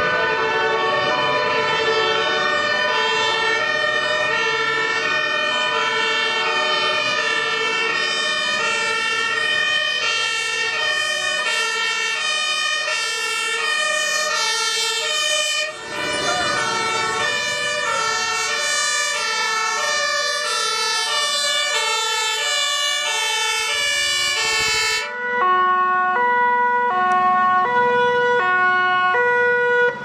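Several German two-tone emergency-vehicle sirens (Martinshorn) on fire engines and an ambulance sounding together, their alternating high and low notes overlapping out of step. The sound changes abruptly about 16 s in and again about 25 s in; after the second change one two-tone siren stands out on its own, switching notes about every 0.7 s.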